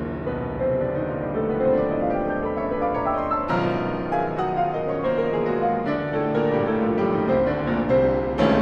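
Solo piano music: a dense passage of many overlapping notes, with a loud struck chord about three and a half seconds in and another near the end.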